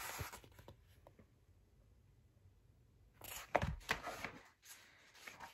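A paperback book being handled: a brief rustle at the start, then near quiet, then a second spell of rustling and handling noise about three seconds in.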